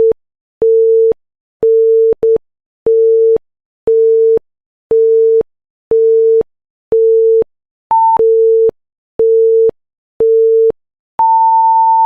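Quiz countdown timer beeping: a steady electronic beep about once a second, with one short higher beep about eight seconds in, ending in a long higher tone that marks time running out.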